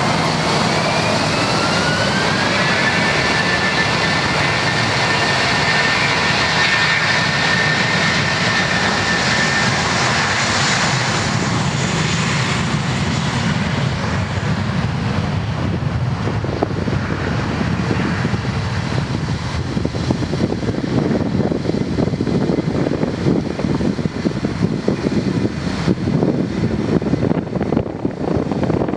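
Airbus A320 jet engines spooling up and running at takeoff power. A high whine rises over the first few seconds and then holds steady, over a dense rumble that turns rougher and more fluctuating in the second half as the airliner rolls and lifts off.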